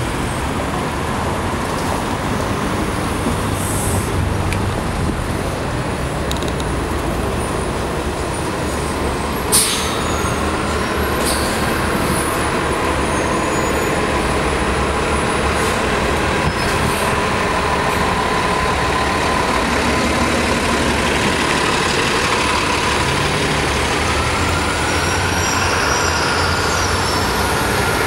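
New Flyer XDE60 Xcelsior articulated hybrid bus, with a Cummins ISL9 diesel and BAE Series-E hybrid drive, pulling away and passing by over steady street traffic. A brief sharp burst comes about ten seconds in. Then a rising electric whine from the hybrid drive climbs as the bus accelerates, with a second rise near the end.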